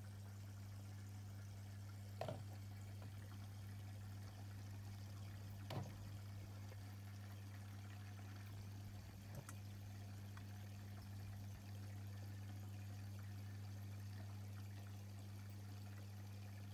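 Aquarium equipment humming steadily with water trickling, the low mains hum of an aquarium pump or filter. Three faint clicks come about 2, 6 and 9 seconds in.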